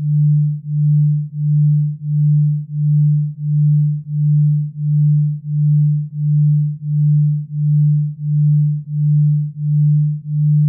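Synthesized delta-wave tone for sleep: a single low, pure tone that swells and fades evenly about one and a half times a second, a pulse rate in the delta-brainwave range.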